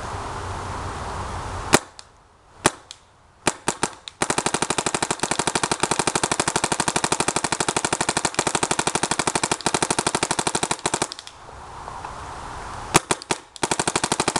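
Compressed-air Planet Eclipse Ego 10 paintball marker firing. A few single shots come first, then a rapid unbroken string of shots for about seven seconds, then a few more shots near the end.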